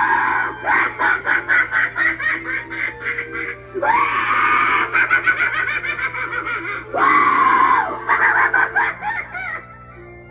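Spirit Halloween Poor George animatronic clown running its routine through its built-in speaker: carnival-style music with three loud bursts of a crazed clown voice over it. It cuts out shortly before the end.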